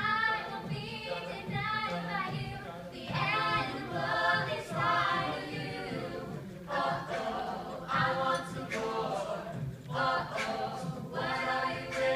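Mixed-voice a cappella group singing in harmony, with vocal percussion clicks from a beatboxer.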